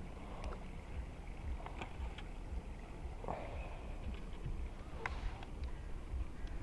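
Low wind rumble buffeting the microphone, with scattered faint clicks and knocks from handling and a sharper click about five seconds in.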